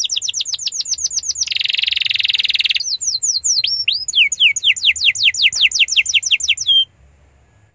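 Domestic canary singing: fast runs of repeated falling notes, a dense trill about one and a half seconds in, then slower swooping notes that speed into another fast run and stop abruptly near the end.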